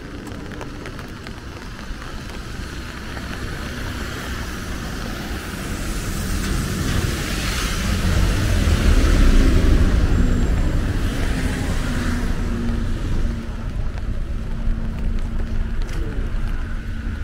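Road traffic on wet streets: a vehicle's engine and tyre noise grow louder to a peak about nine seconds in, then ease off into a steady engine hum.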